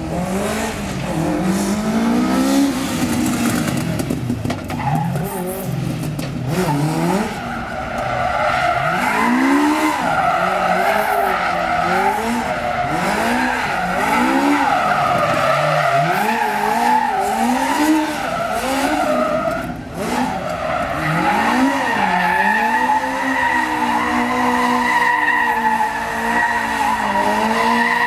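A stunt car's engine revving up and down over and over, with tyres skidding and squealing; near the end the engine holds a steadier, higher note.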